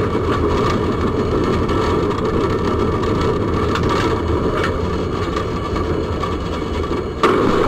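Tram in motion heard from inside the driver's cab: a steady rumbling running noise with a few faint clicks. It gets suddenly louder about seven seconds in.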